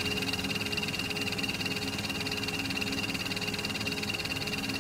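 A steady mechanical running noise, like an idling engine, with a rapid low pulsing and a constant high whine over it.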